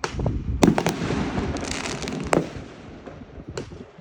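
Fireworks going off: several sharp bangs in quick succession, a dense crackling spell for a second or so, then a last bang near the end.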